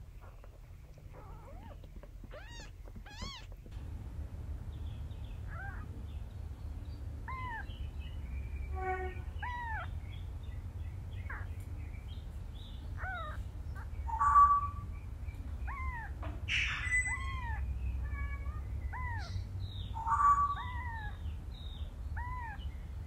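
A very young kitten mewing over and over, short high cries that rise and fall in pitch, about one a second, with a few louder cries in the middle and near the end.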